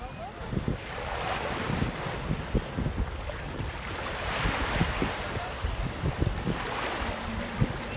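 Gusty wind buffeting the microphone over the wash of surf, the noise swelling and easing about a second in, midway and near the end.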